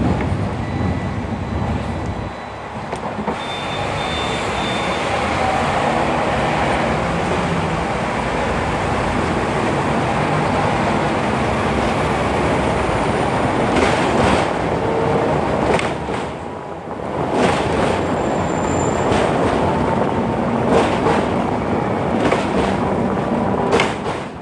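Hong Kong double-decker tram running along its track: a steady rumble of steel wheels on the rails, with a few sharp knocks in the second half.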